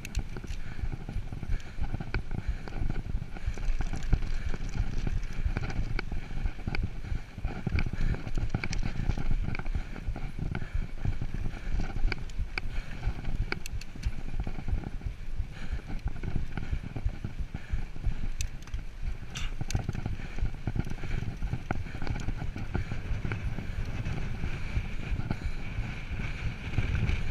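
Mountain bike ridden over a dirt trail: a steady low rumble of tyres and wind on the microphone, with scattered clicks and rattles from the bike as it rolls over bumps.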